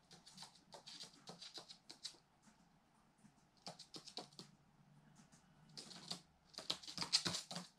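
Bursts of light, quick clicking and tapping from a Eurasian magpie's claws and beak on a hard wooden floor and at a cat-food bowl. The loudest run comes near the end.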